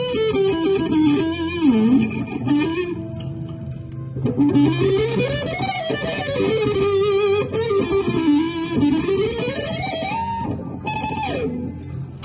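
Harmony Silhouette electric guitar played through an amplifier: a single-note lead line with pitch bends and slides that glide up and down, and wavering vibrato on held notes.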